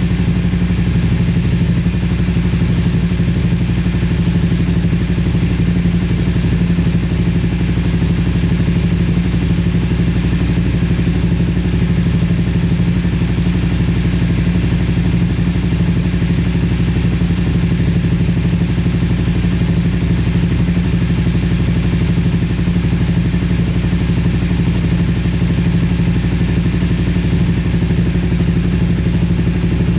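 Motorcycle engine idling steadily, a constant hum with no revving, running after starting on a freshly charged battery.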